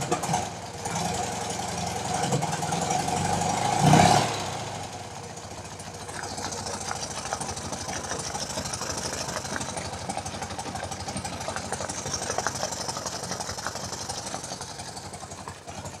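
BMW R90/6 air-cooled flat-twin engine idling just off the choke, with a brief louder burst about four seconds in before it settles to a quieter idle. Through the idle runs a light regular ticking from the top end that a fresh top-end refresh has not cured, its cause still unknown to the owner.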